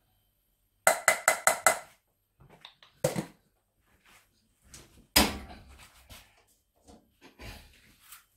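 A metal spoon rapped quickly five or six times against the rim of a stainless saucepan, ringing, to knock off the last of the rice. Then a few knocks and clatters of cookware being set down, the loudest a dull thump about five seconds in.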